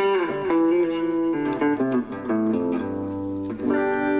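Electric guitar on a clean tone, played as a slow improvised run of single notes that opens with a short downward slide. The run ends with a chord struck near the end and left ringing.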